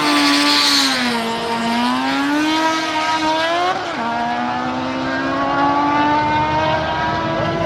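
A racing engine running hard under acceleration during a drag run. Its pitch sags, then climbs, drops sharply once about four seconds in as it shifts gear, and then climbs slowly again.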